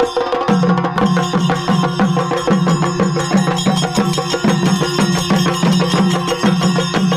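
Chenda melam: several cylindrical chenda drums beaten hard with sticks in a dense, fast roll over a deep drum beat about twice a second, with ilathalam hand cymbals ringing on top. The deep beat drops out for the first half second and then comes back in.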